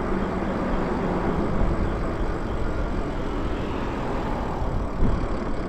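Wind rushing and buffeting against the microphone of a moving electric bike on pavement, with a low thump about five seconds in.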